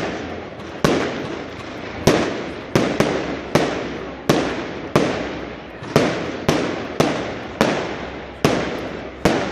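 Fireworks going off in a quick run of loud bangs, about a dozen in a row, less than a second apart. Each bang trails off in an echoing rumble.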